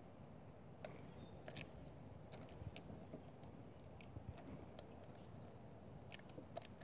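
Faint, irregular crinkles and light clicks of folded aluminium foil being handled and pressed over a fast idle valve's air port.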